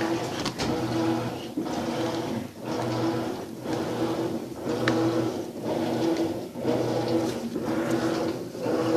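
Maytag washing machine running its rinse cycle: a motor hum and swish of water that goes in regular strokes, about one a second.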